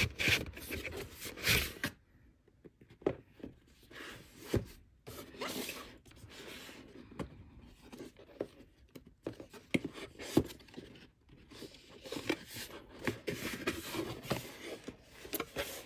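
Cardboard microphone box being handled and opened by hand: card sliding and scraping against card, flaps rubbing and a few sharp clicks, in irregular bursts with quieter pauses in between.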